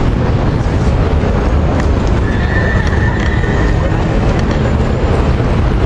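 Wind buffeting the microphone in a loud, steady rumble, over street noise. A thin, high, steady tone sounds for about a second a little after two seconds in.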